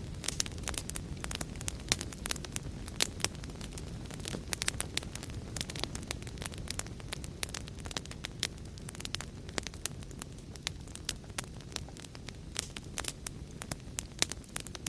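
Wood fire in a fireplace crackling: a steady low roar of burning with sharp irregular pops and snaps, several a second.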